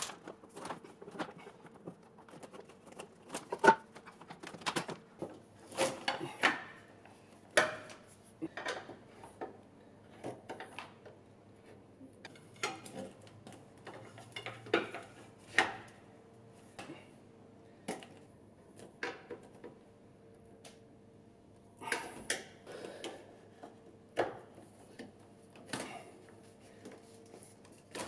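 Plastic cable chain links clicking and clattering as they are handled and fitted onto a CNC lathe's axis: irregular sharp knocks and clicks, the loudest a little under 4 s in, over a faint steady hum.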